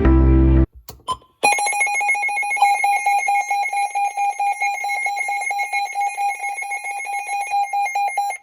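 Weather radio's alert alarm sounding on a test: a loud, rapidly pulsing electronic beep that starts about a second and a half in, after a couple of clicks, and cuts off suddenly at the end.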